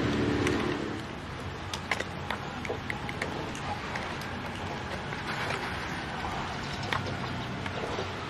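Steady outdoor background noise with scattered light clicks and ticks; a low humming tone fades out about a second in.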